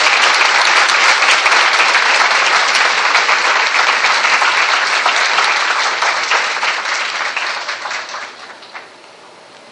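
Audience applauding, a dense steady clapping from a large seated crowd that tapers off about seven seconds in and dies away near the end.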